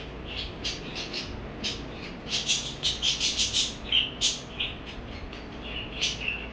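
Parakeets chirping in short, high calls, with a quick run of louder chirps, about five a second, from about two to four seconds in, over steady low background noise.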